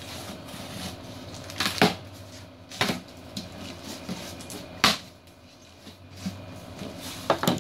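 Cardboard shipping box being opened by hand: its flaps are pulled and folded back, with several sharp cardboard scuffs and thumps. The loudest comes about five seconds in.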